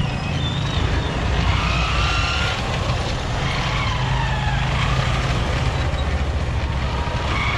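Street traffic: a steady low rumble of vehicle engines, with faint higher tones now and then drifting over it.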